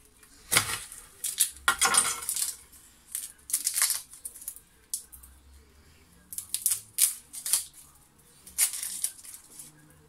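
Irregular clatter and scraping of kitchen utensils and dishes being handled, short sharp clinks with a few longer scrapes between quiet gaps.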